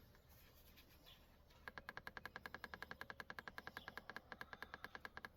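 Rapid electronic ticking, about eleven even ticks a second with a faint steady high beep tone, starting about two seconds in and cutting off abruptly after roughly three and a half seconds. Faint bird chirps now and then.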